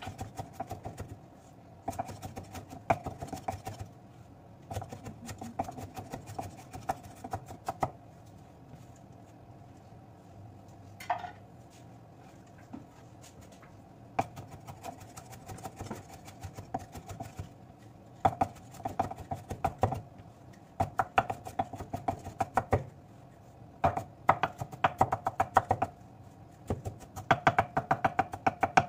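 Chef's knife rapidly chopping garlic on a wooden cutting board, in bursts of quick knocks with short pauses and a longer lull in the middle.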